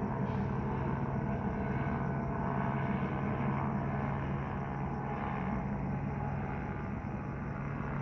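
Police helicopter overhead, its rotor and engine making a steady low drone.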